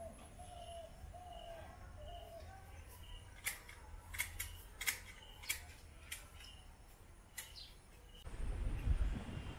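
Manual hedge shears snipping through hedge twigs: a run of about eight sharp snips from a few seconds in. At the start a small bird calls over and over in a short repeated note, and near the end a low rumble comes in.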